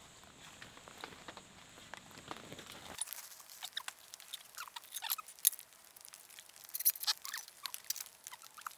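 Rain dripping: scattered drops ticking and plinking irregularly, growing denser and sharper about three seconds in.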